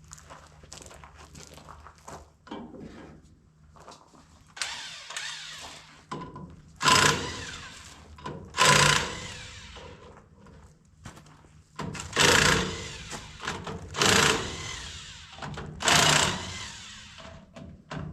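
Metal being struck on a combine: light taps and rattles, then a series of loud ringing metal strikes about every two seconds from about seven seconds in.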